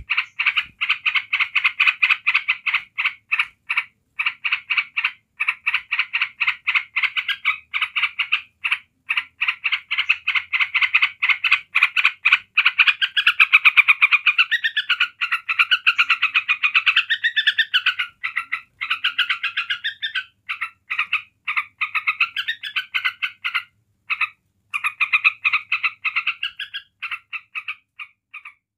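Yellow-vented bulbul chattering in a long, rapid, pulsed trill with only short breaks, turning into a more warbled phrase that swings up and down in pitch around the middle. This is the excited, unbroken 'ngebren' chatter that keepers play to provoke other bulbuls.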